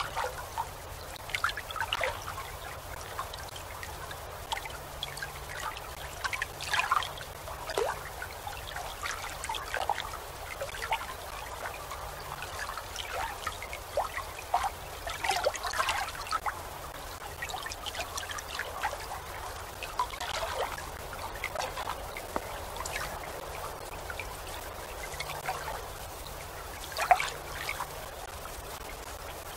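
Water lapping and gurgling in irregular small splashes, with one louder splash near the end.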